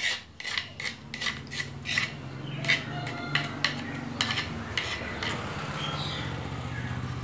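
A metal spoon scraping and clinking against a shallow cobek mortar as thick sambal is scooped out, in a run of sharp clicks and scrapes. About halfway through, a low steady hum comes up underneath.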